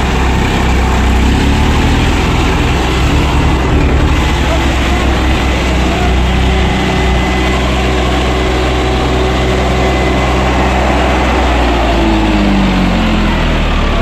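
Two three-cylinder diesel tractor engines, a John Deere 5310 and a Swaraj 855, running hard under load as they pull against each other on a chain in a tug-of-war. The steady engine drone shifts in pitch near the end.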